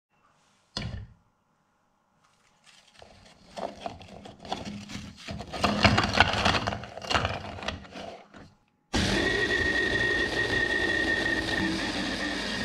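A short knock about a second in, then biscuits clattering and rustling as they are handled and dropped into a plastic chopper bowl. About nine seconds in, a hand blender's chopper attachment starts abruptly and runs steadily with a high whine, grinding the biscuits into crumbs.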